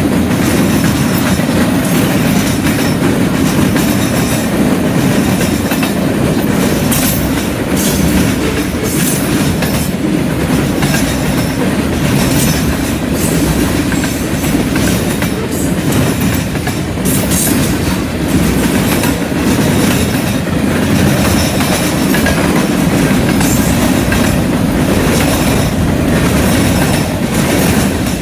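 Freight train cars rolling past close by, a mix of bulkhead flatcars, tank cars and covered hoppers. Steel wheels on rail make a steady rumble, with repeated clacks as the wheel sets cross the track.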